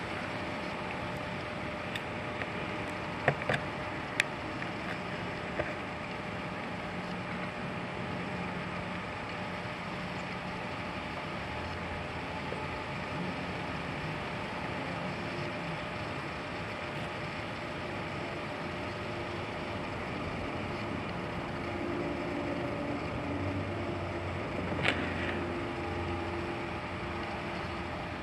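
Small sharp clicks and taps of a carp-fishing bobbin indicator's metal and plastic parts being handled and screwed together, a cluster a few seconds in and one more near the end, over a steady low hum.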